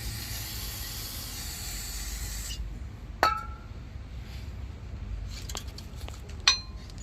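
Aerosol brake cleaner spraying in a steady hiss for about two and a half seconds, then stopping. Two sharp metallic clinks with a brief ring follow, one a little after the midpoint and one near the end, as brake parts are handled.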